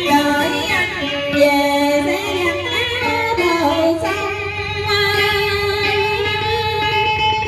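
A woman singing a Vietnamese song into a microphone, amplified through loudspeakers. Her notes slide and bend through the first half, and about halfway through she holds one long note.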